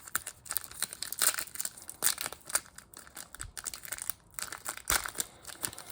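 Plastic wrapper of a trading card pack crinkling in irregular crackles as it is handled.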